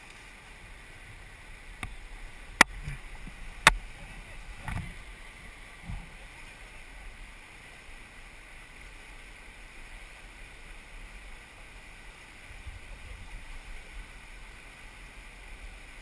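Steady rushing of a fast mountain river. Two sharp clicks a second apart come about two and a half seconds in, followed by a couple of duller knocks.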